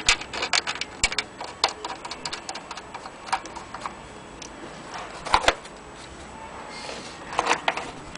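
Vintage Frister & Rossmann hand-crank sewing machine clicking and clacking as its mechanism is turned and handled. The clicks come fast for the first two seconds, then sparser, with louder clusters of knocks about five and seven and a half seconds in.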